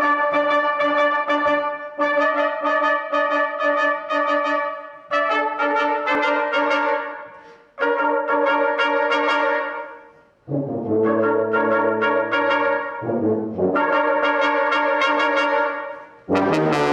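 Brass quintet of trumpets, horn, trombone and tuba playing sustained chords in short phrases of a few seconds each, with brief breaks between them. Low bass notes join about two-thirds of the way through.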